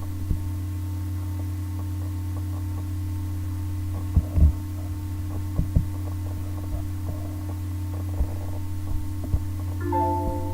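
A steady low electrical hum, with a few soft knocks and clicks scattered through it. A short multi-pitched tone sounds just before the end.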